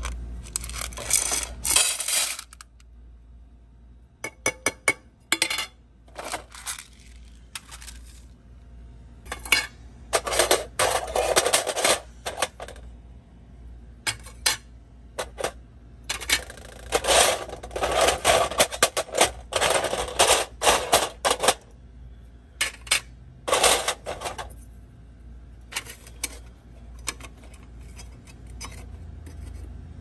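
Metal door hardware (antique lock trim and knob pieces) clinking and clattering against each other as it is handled, in short runs of rapid clinks with pauses between.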